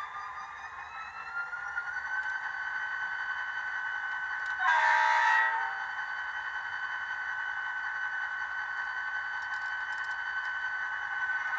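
Sound of a model train locomotive from a DCC sound decoder, played through a small speaker. A steady high engine drone rises in pitch over the first couple of seconds, and a single horn blast of about a second sounds near the middle.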